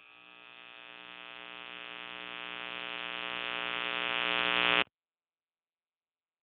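A steady, buzzing electronic drone from an intro logo. It swells louder over about five seconds on one unchanging pitch, then cuts off abruptly.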